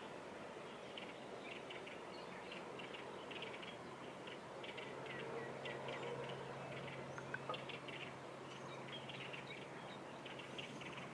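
Small birds chirping over and over in short, high notes above a steady background hum, with a couple of sharp ticks about seven and a half seconds in.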